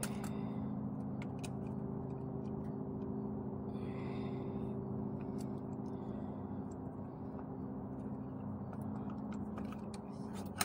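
Scattered small metal clicks and a couple of short scrapes from pliers working on a shopping-cart caster wheel, over a steady low mechanical hum.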